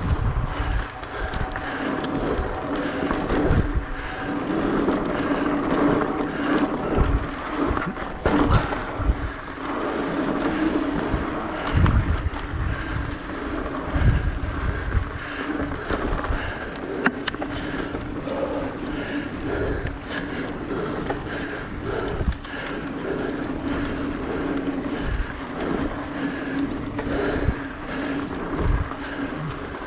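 Mountain bike ridden over dirt singletrack: tyres rolling on the trail with a steady hum, the bike rattling and thudding irregularly over bumps, and wind buffeting the microphone.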